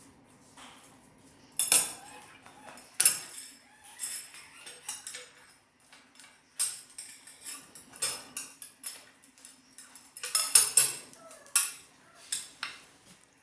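A parrot handling a metal spoon: irregular clinks and knocks of the spoon against a dish, a few of them much louder than the rest.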